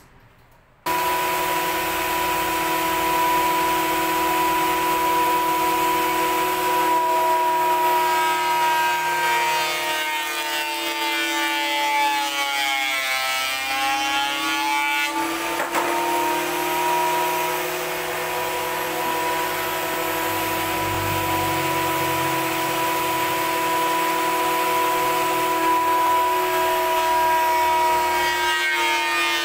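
Electric power tool motor running steadily, starting abruptly about a second in, its pitch sagging around the middle and then coming back up.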